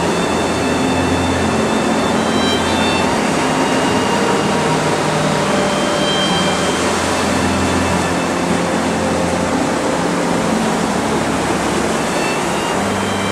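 Surf of the incoming tide washing over a sand beach and around rocks: a loud, steady rushing noise.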